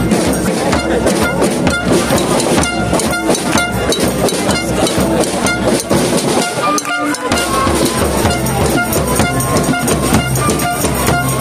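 Music with a regular drum beat and held tones.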